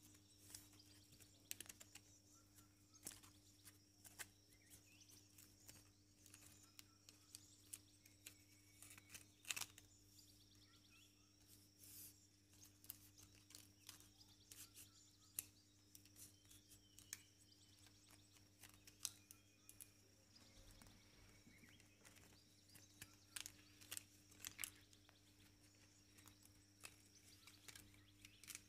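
Small irregular clicks and crackles of thin bamboo strips being bent and woven by hand, over a faint steady hum.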